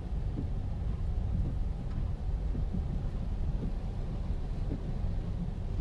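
Steady low rumble of outdoor street ambience: wind buffeting the microphone over passing traffic.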